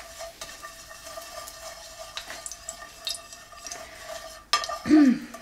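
Hot palm oil with seasoning sizzling in a frying pan over a steady hum from an extractor hood fan, with light clicks of utensils. About four and a half seconds in there is a sudden louder clatter, followed by a short wordless vocal sound.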